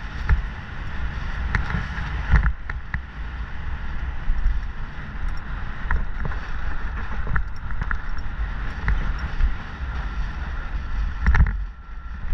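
Mountain bike ridden fast down a dirt trail and over a wooden plank ramp. Wind buffets the microphone throughout, over the bike's rattle and short sharp knocks as the tyres hit bumps and the boards.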